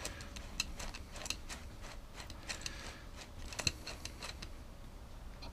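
Faint, irregular small metallic clicks and ticks of a screwdriver unscrewing the main jet from a Mountfield lawnmower carburettor, with one sharper click about midway.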